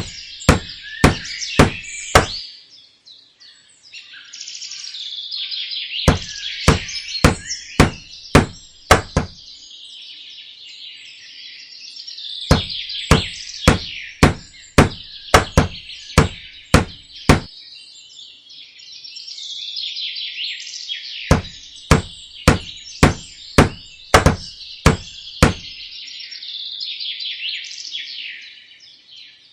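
Small hammer tapping nails into wood in runs of sharp knocks, about two a second, with pauses between runs. Birds chirp throughout.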